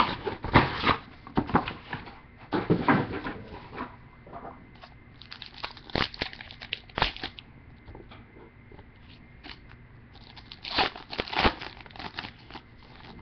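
Plastic and foil wrappers on a box of trading cards being torn open and crinkled by hand, in irregular bursts of rustling and crackling with quieter pauses between.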